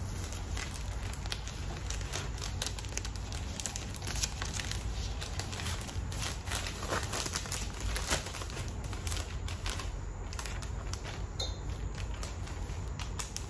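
Plastic packaging bags crinkling and rustling in irregular bursts as garments are handled and packed.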